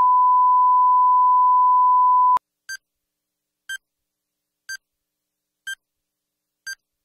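Steady test tone played with the colour bars, cutting off about two and a half seconds in. Then come short countdown-leader beeps, one a second, five of them, each a little higher in pitch than the tone.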